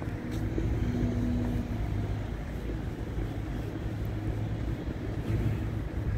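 Outdoor city ambience: a steady low hum of distant traffic.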